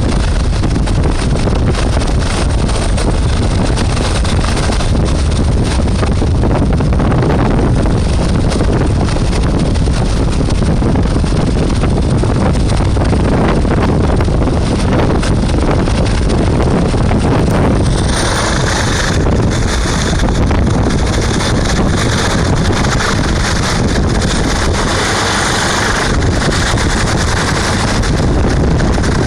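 Hovering rescue helicopter with its rotor wash buffeting the microphone: a loud, steady rush of wind and machine noise that turns brighter and hissier about two-thirds of the way through.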